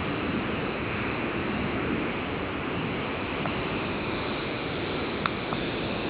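Steady rushing noise of a ride-on lawn mower running with its cutting deck engaged, blended with wind on the microphone. A few short high squeaks come near the end.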